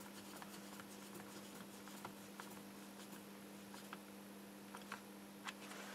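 Faint scattered small clicks and taps of fingers handling a circuit board and wires inside a 3D-printed plastic lamp base, over a faint steady electrical hum.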